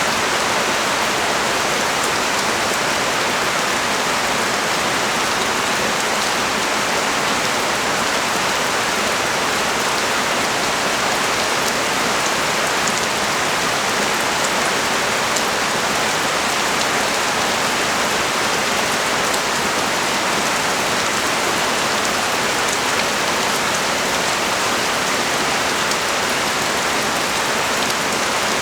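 Heavy rain pouring steadily onto a street and nearby surfaces, an even hiss with faint scattered drop ticks.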